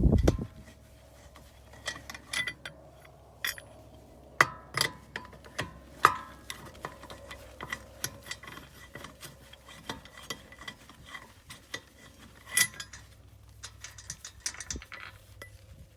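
Lug wrench and steel lug nuts clinking as the nuts are unscrewed and taken off a car wheel: scattered metallic clicks and clinks, with sharper knocks about four to six seconds in and again near twelve seconds.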